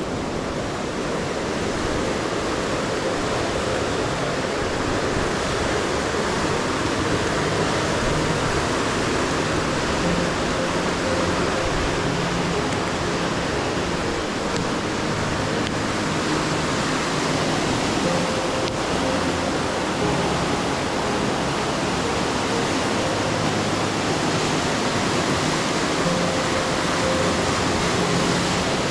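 Steady rush of a fast mountain river tumbling over rocks in white water, with music faintly beneath it.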